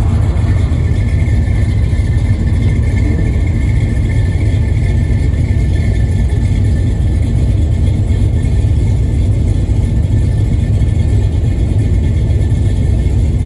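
Car engines idling together, a steady low rumble with no revving.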